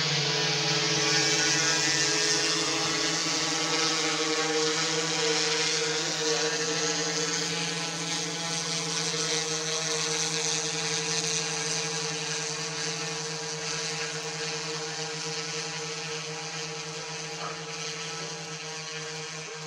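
Fixed-wing VTOL drone with four lift rotors flying overhead: a steady propeller buzz with several held tones, slowly fading as it moves away.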